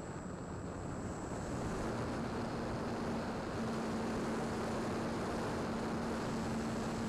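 Electric motor and propeller of a Dynam Tiger Moth RC biplane running at high throttle on its takeoff roll across grass, heard from on board the plane. A steady rushing drone that grows slightly louder, with a faint steady tone coming in a couple of seconds in.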